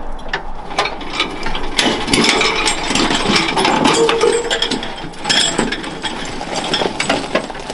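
Small electric winch running, its motor and gearbox giving a continuous rattling, clicking whir.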